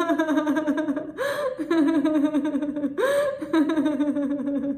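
A woman laughing on purpose in a laughter-yoga exercise, in quick 'ha-ha-ha' runs. There are three runs, each about a second long, with a sharp breath in between them.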